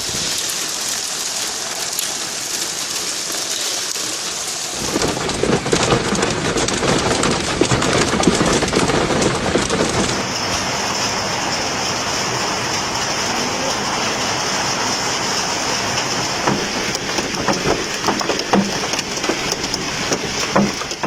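Heavy rain pouring down, a dense steady hiss. The sound changes abruptly about five seconds in and again about ten seconds in, with a stretch of sharp, crowded patter in between.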